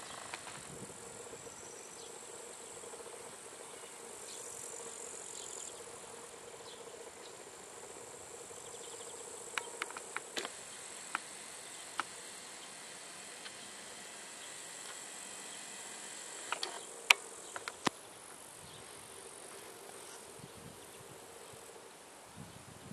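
Insects chirring steadily at a high pitch in a summer field. A few sharp clicks come about halfway through and again, louder, about three-quarters of the way through.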